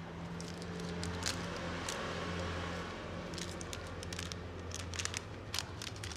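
Scattered crinkles and clicks of a small plastic seasoning packet being handled and picked open, over a steady low hum.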